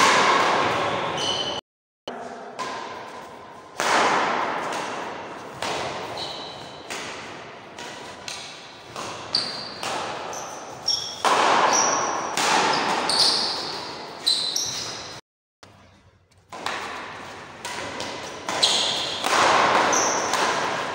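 Badminton rally in an echoing hall: rackets repeatedly striking the shuttlecock, with short high squeaks from players' shoes on the court. The sound cuts out completely twice, briefly.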